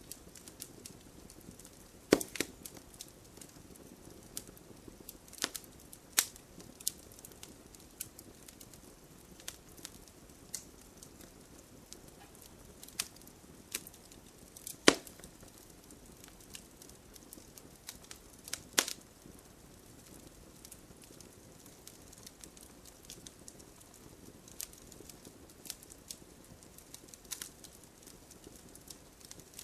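Campfire burning: a steady low rush of flames with scattered crackles and a few sharp, louder pops.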